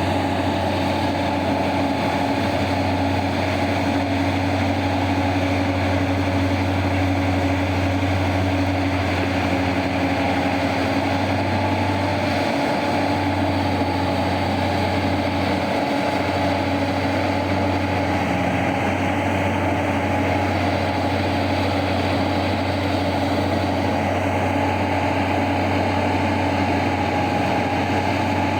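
Large diesel engine of heavy mining equipment running at a steady speed, a deep hum with steadier higher tones over it. The low hum dips briefly twice midway.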